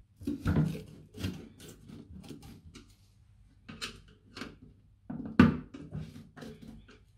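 A screwdriver working the fixing screw at the back of a toilet cistern, with irregular clicks, scrapes and knocks of handling; the loudest knock comes about five seconds in.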